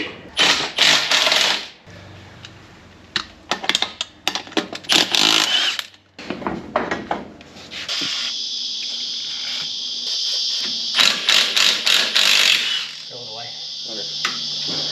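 Impact wrench hammering in short bursts with metallic clanks, then running longer and steadier from about eight seconds in, as wheel nuts are undone.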